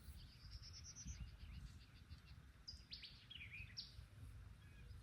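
A songbird singing: a quick run of rising chirps, then about three seconds in a phrase of sharp downward-sweeping notes and a lower curling note, over a faint low outdoor rumble.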